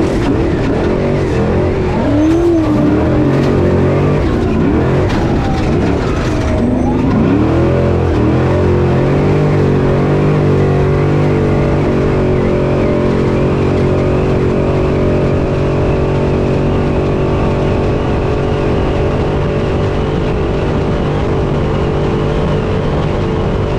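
Class 6100 off-road race truck's engine heard from inside the cab at race pace. The revs rise and fall over the first several seconds, with a few sharp knocks, then hold steady and high for the rest.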